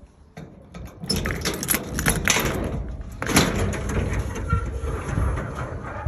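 A key working in the lock of a metal garage door, then the door rattling and clattering loudly for several seconds as it is opened.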